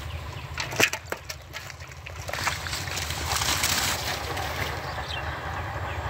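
Sloshing and rustling in shallow muddy water thick with water hyacinth as a person wades and works through it, with a few sharp knocks about a second in and the sloshing growing louder after two seconds.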